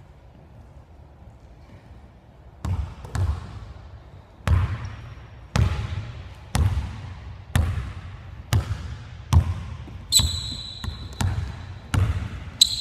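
Basketball dribbled on a hardwood gym floor, starting a couple of seconds in and bouncing about once a second, each bounce echoing in the large hall. Near the end, sneakers give short high squeaks on the court.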